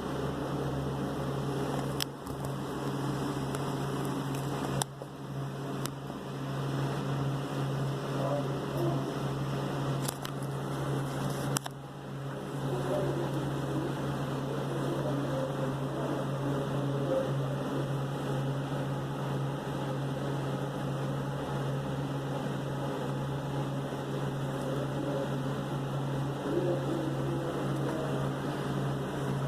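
A steady machine hum with a low tone running under it, broken by a few sharp clicks and brief dips, about two, five, ten and twelve seconds in.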